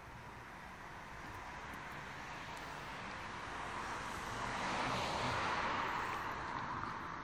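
A car driving past: a rushing noise that builds, peaks about five seconds in, and fades again.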